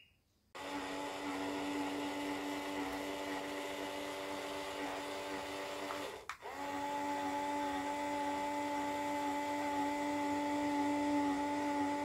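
Small electric motor in a homemade cardboard toy air conditioner whining steadily. It cuts out for a moment about six seconds in and starts again at a slightly different pitch.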